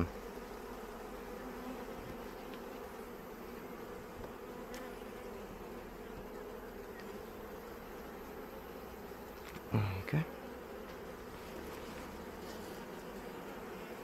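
Steady buzzing of many honeybees from an open, disturbed hive. About ten seconds in it is briefly broken by a short burst of a man's voice.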